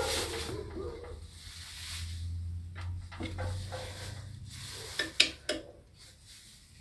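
Screwdriver turning and scraping in the Phillips screws of an industrial sewing machine motor's cork brake pad as they are tightened, with two sharp metal clicks a little after five seconds.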